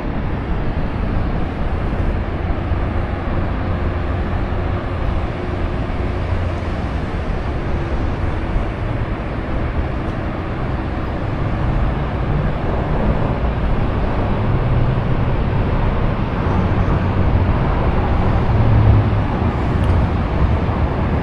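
Steady road traffic noise from a busy road alongside, cars passing in a continuous wash. The low rumble swells in the second half as heavier vehicles go by.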